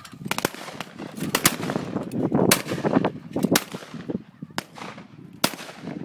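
Shotguns fired at clay targets by several guns in quick, irregular succession: about ten shots in six seconds, some louder and nearer than others.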